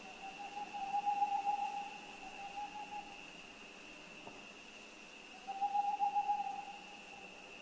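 Owl hooting: two long, wavering hoots, the first starting right away and lasting about three seconds, the second about five seconds in, over a steady high-pitched tone.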